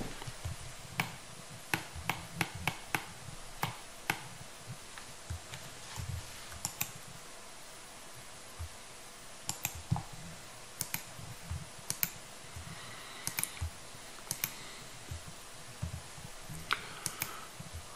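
Scattered clicks of a computer mouse and keyboard keys, sometimes several in quick succession, over a faint steady hiss.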